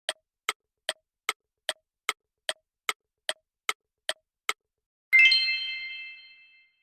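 Countdown timer sound effect: twelve sharp clock-like ticks, about two and a half a second, then a single bright chime about five seconds in that rings out and fades over a second and a half.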